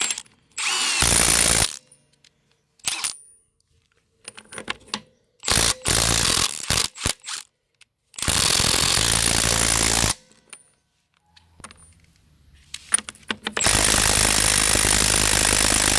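Cordless half-inch impact wrench (Milwaukee M12 FUEL stubby) hammering on 33 mm truck wheel nuts in bursts: a short burst about a second in, a few quick stabs around six seconds, then two longer runs of about two seconds each.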